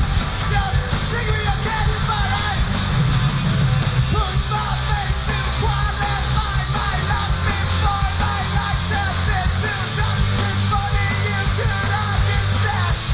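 Live rock band playing a cover of a well-known Malaysian song, with the lead singer singing into a microphone over guitars and drums.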